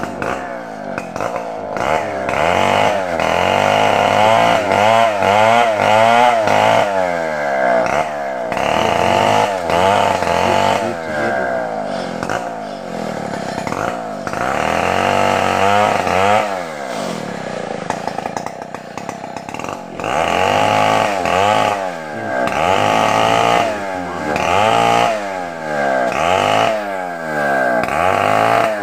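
A chainsaw engine running off-camera, revving up and falling back over and over, easing to a lower, quieter run a couple of times.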